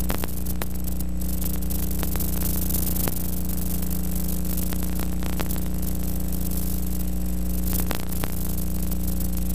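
Steady electrical hum and hiss with scattered clicks and crackles, the noise of an old film or tape transfer with no recorded sound.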